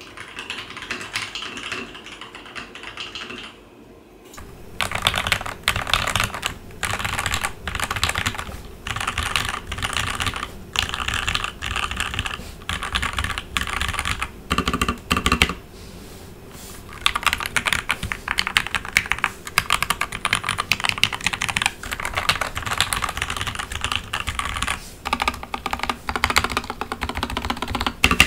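Leopold FC900R PD mechanical keyboard with Gateron Ink Black linear switches and stock keycaps being typed on in fast runs of keystrokes. There are short pauses about four seconds in and again past the middle.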